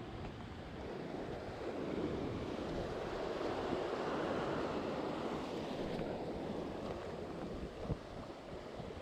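Sea surf washing against a rocky shore, one swell of water building about two seconds in and ebbing away after about six seconds, with wind buffeting the microphone.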